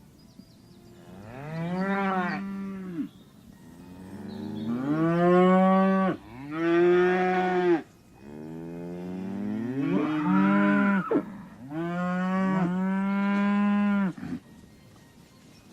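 Cow mooing: a run of about five long moos, each rising in pitch at the start and then held, with short gaps between them.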